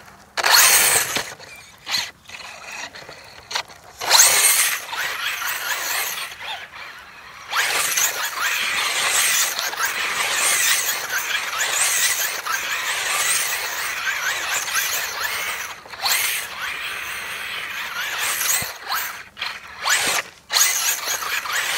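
Traxxas Rustler electric RC truck driving and spinning on a dirt and grass yard: its motor whining and tyres scrabbling in short bursts, with one long run of about eight seconds in the middle.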